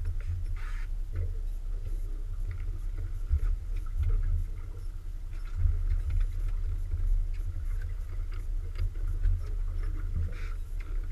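Low rumble of the boat's outboard motor running at trolling speed, mixed with wind buffeting the microphone, with light scattered clicks throughout.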